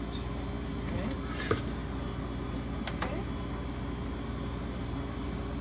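Dough scraper working the inside of a plastic food-processor bowl and the bowl knocking down onto the counter: a short scrape and knock about a second and a half in, then a faint click near the middle, over a steady low hum.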